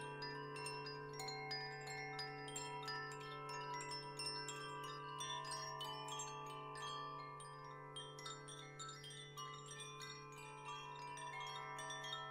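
Wind chimes tinkling in rapid, irregular strikes at many high pitches, over a steady low sustained tone.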